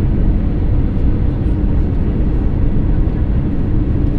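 Steady low rumble of jet engines and airflow heard inside the passenger cabin of an Airbus A321neo LR, with no distinct events.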